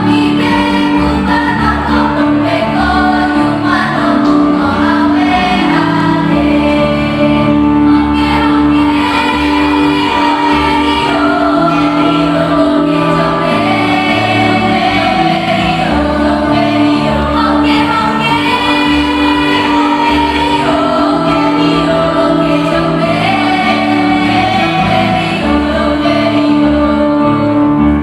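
A choir singing, several voice parts at once moving together over sustained lower notes, continuously without a break.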